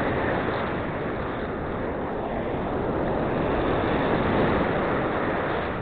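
Steady roar of ocean surf with wind buffeting the microphone, swelling a little toward the end.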